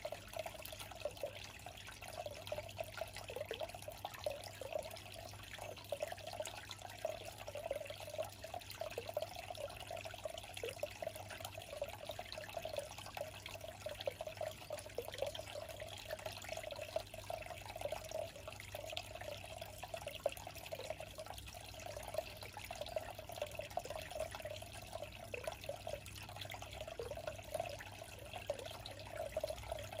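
Steady trickle of running water, even and unbroken, with a faint low hum underneath.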